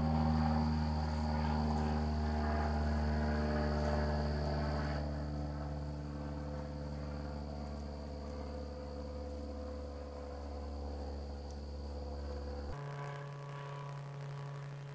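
Steady low hum made of several fixed tones with a faint high-pitched whine above it; the hum shifts abruptly to a different, thinner pitch pattern near the end.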